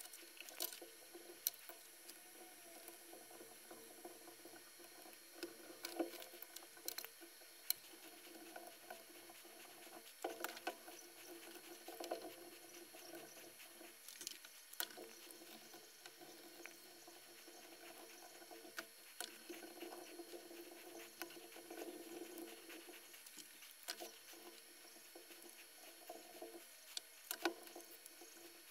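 Faint handling noise from a circuit board being moved and touched on a workbench: scattered light clicks, taps and scratches, a few bunched together, over quiet room hiss.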